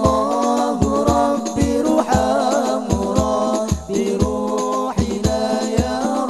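Indonesian rebana ensemble music: a male lead singer sings an Arabic sholawat melody over a steady beat of low thumps from the rebana frame drums and a large bass drum, about two to three strokes a second.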